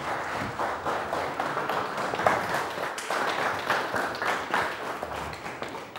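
Small audience applauding, a dense patter of many hand claps that dies away near the end.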